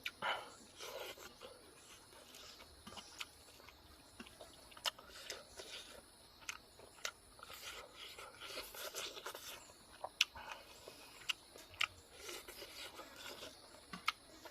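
A person eating close to the microphone: chewing with scattered sharp clicks and short scraping sounds, as of food and utensils being handled.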